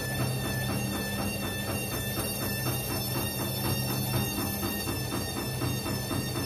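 Candy CS1292D3 front-loading washing machine at the start of its first spin with an unbalanced load, the drum turning slowly so the laundry tumbles. The motor gives a steady hum and whine, with a quick regular pulsing at about five a second.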